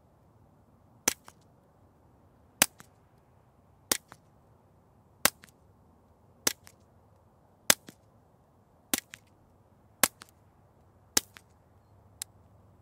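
Ruger Mark IV Lite .22 LR pistol with a CGS Siren 22 suppressor, firing ten shots of hotter Federal match ammunition at a steady pace, about one shot every 1.2 seconds. Each suppressed crack is followed a moment later by a fainter second crack, and the last shot is weaker.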